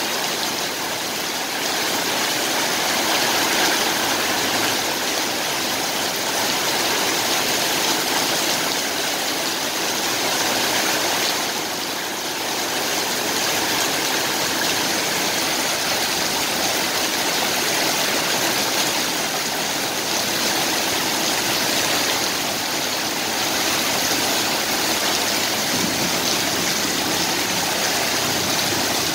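Heavy rain pouring steadily onto a paved street, a continuous hiss. Near the end a vehicle drives through the standing water, splashing.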